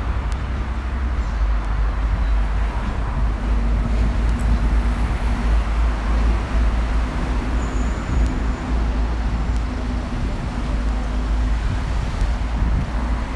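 City street traffic noise: a steady wash of passing vehicles with a heavy low rumble, and an engine hum held through the middle.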